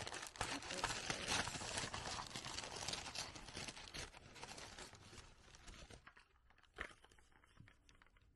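Brown paper bag and plastic bags crinkling and rustling with many small crackles as hands rummage through them; the rustling dies away about six seconds in, leaving one short knock.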